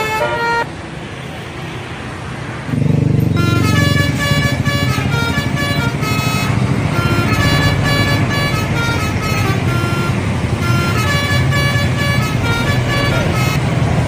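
A bus's telolet horn, a set of air horns playing a quick tune of changing notes, sounding over a loud low engine rumble as the bus passes. The engine comes up about three seconds in and the horn tune starts just after, going on to the end; a previous horn tune ends in the first moment.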